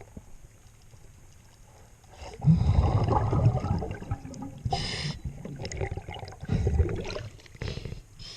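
Scuba diver breathing through a regulator underwater: two long gushes of exhaled bubbles, about 2.5 s and 6.5 s in, with a short hiss of inhaling between them.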